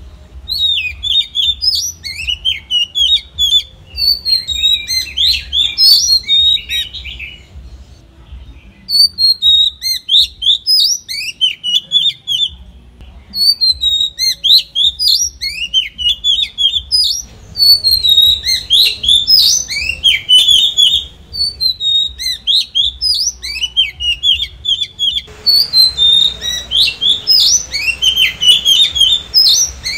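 Oriental magpie-robin singing: fast, varied phrases of clear whistles, slurred notes and chirps, broken by a few brief pauses.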